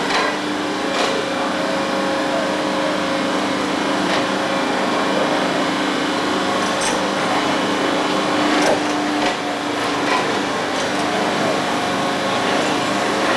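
Small engine of a rail-mounted tie-handling gantry crane running steadily, with a few sharp metal knocks; its hum changes pitch about nine seconds in.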